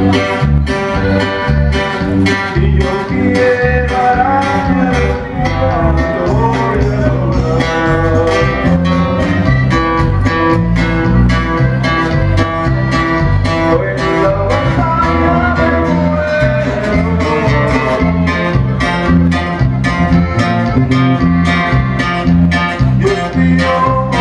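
Live norteño band playing loudly: accordion melody over drums and a bouncing bass line on a steady beat.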